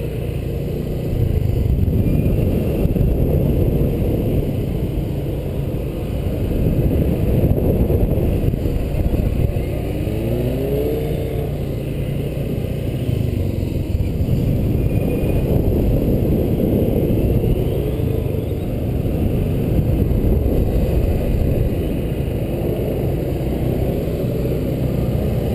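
Honda PCX125 scooter's single-cylinder engine under way, rising and falling with the throttle over a dense low rumble. A short rising whine about ten seconds in.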